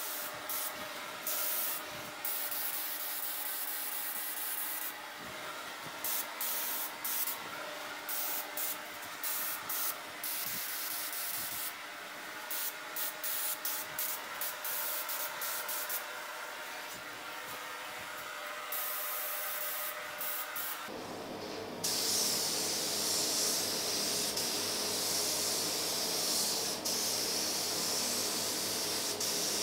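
Air-fed paint spray gun hissing in short stop-start bursts as the trigger is pulled and released, laying the last coat of clear. About 21 seconds in the hiss becomes continuous and louder, with a lower hum joining it. A steady hum from the shop's exhaust fan runs beneath.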